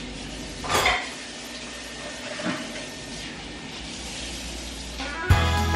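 Low room noise with a brief swish of noise about a second in, then music with a strong beat starts suddenly near the end, just after a track is picked on a phone.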